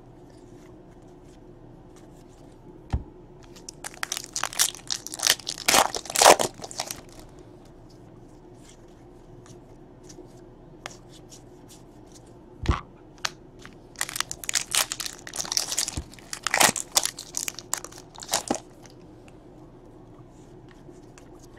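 Baseball cards being handled and slid against each other, with papery rustling and scraping in two spells, about four and about fourteen seconds in. A couple of single sharp knocks come a few seconds before each spell.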